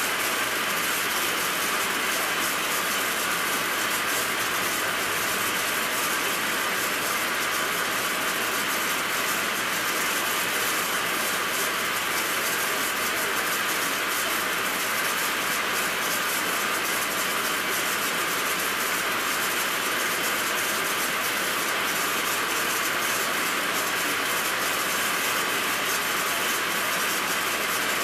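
Engine lathe running as a high-speed-steel tool turns an eccentric diameter on a steel part held offset in a four-jaw chuck. An even running and cutting noise that does not change.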